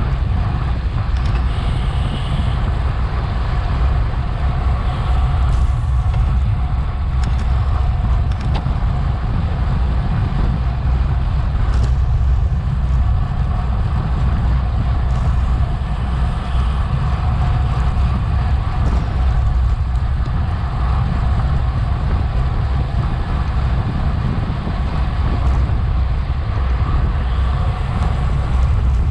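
Wind rushing over a bike-mounted action camera's microphone while a bicycle is ridden fast in a race, a loud, steady low rumble mixed with road and tyre noise.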